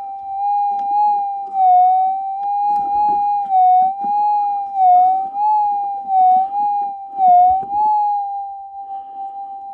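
Minelab GPZ 7000 metal detector's threshold tone, a steady hum that wavers slightly up and down in pitch several times as the coil is swept over a dug hole, with scuffing of the coil over the ground underneath. The wavering is ground noise from moisture in the soil, not a metal target.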